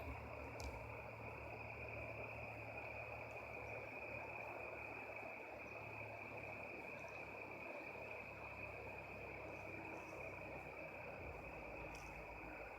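Crickets chirring in a steady, continuous high-pitched chorus, with a low rumble underneath and a faint click near the start and another near the end.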